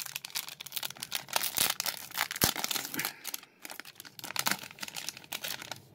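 Trading card pack wrapper crinkling and tearing as it is handled and torn open by hand: a dense, irregular run of crackles with a short pause about three and a half seconds in.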